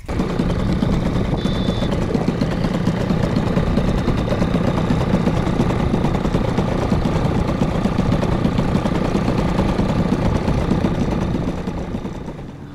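A boat's outboard motor running steadily under way, a low even drone that fades out near the end.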